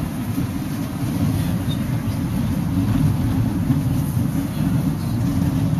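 Steady low rumble of a van's engine and tyres on the road, heard from inside the cabin while driving.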